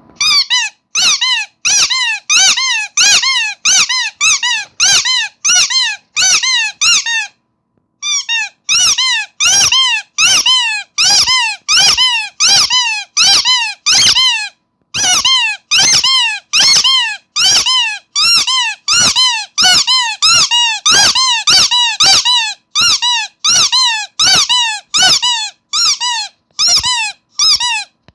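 Rubber starfish squeaky toy squeezed again and again, about two squeaks a second, each squeak rising and then falling in pitch; the squeezing pauses briefly twice.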